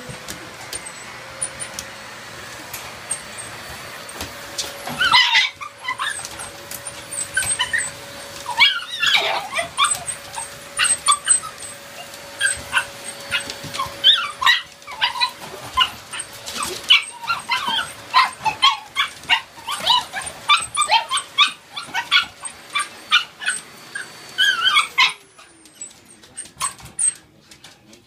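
Puppies yapping and barking in quick, high-pitched bursts over the steady hum of a vacuum cleaner motor. The vacuum spins up at the start and winds down about 25 seconds in, and the barking stops with it.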